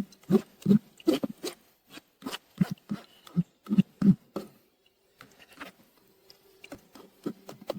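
A spoon mashing and pressing cooked rhubarb pulp in a strainer to squeeze out the concentrate: a run of soft squelching taps about two a second, then a few fainter clicks.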